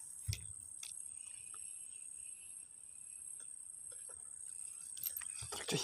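Insects chirring steadily in a high, shrill pitch, with a fainter lower buzz joining in for a few seconds. A soft low thump comes just after the start, and a few handling knocks come near the end.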